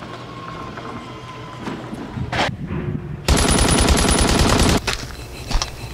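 A loud burst of rapid machine-gun fire, starting about three seconds in and lasting about a second and a half before cutting off abruptly.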